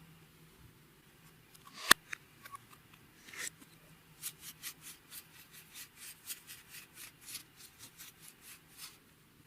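Clear slime being worked by hand: a sharp click about two seconds in, then a run of small sticky clicks and pops, about four a second, through the second half.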